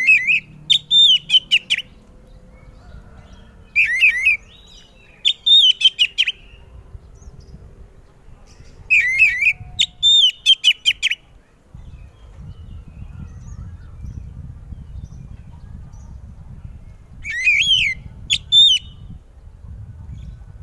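Oriental magpie-robin singing loudly: about five bursts of clear, sweeping whistled phrases with quick repeated notes, a few seconds apart.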